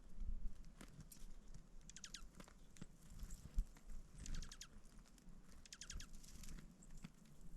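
A small animal's rapid high trill, given three times in short bursts of quick falling notes, with a few soft low thumps between.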